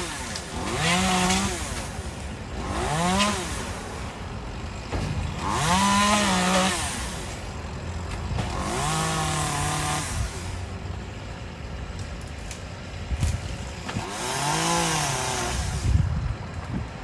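Two-stroke chainsaw revving up repeatedly as it cuts tree limbs, about five bursts of high revs rising and falling in pitch, dropping back to a lower idle between them.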